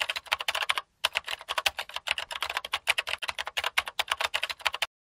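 Typing sound effect: rapid keyboard keystrokes, about ten a second, with a brief pause about a second in, accompanying on-screen text being typed out letter by letter.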